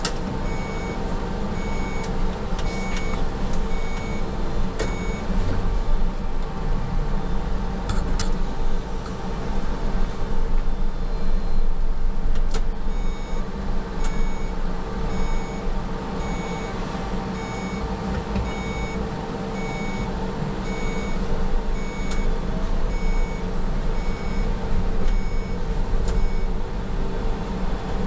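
Škoda 27Tr trolleybus running, with a steady electric hum and road noise and an occasional knock or rattle. A short electronic beep repeats about every 0.7 seconds for the first five seconds or so, then stops and starts again about halfway through, continuing to near the end.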